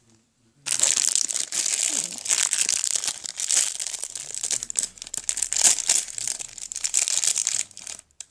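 Plastic blind-bag wrapping of a L.O.L. Surprise toy crinkling and tearing as it is unwrapped by hand: a dense, continuous crackle that starts under a second in and stops just before the end.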